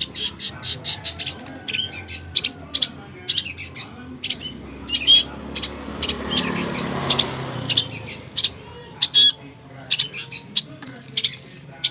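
Young birds chirping, with rapid short chirps repeating several times a second, the begging calls of hand-fed chicks. A rustling noise swells around the middle.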